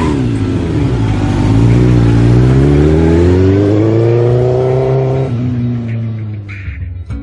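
Car engine accelerating, its pitch climbing steadily for several seconds; the rising note breaks off about five seconds in and the sound fades away.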